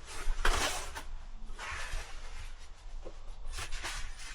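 Handling noises of parts and wiring being worked by hand: a loud rustle about half a second in, softer rustling around two seconds, then a few light clicks.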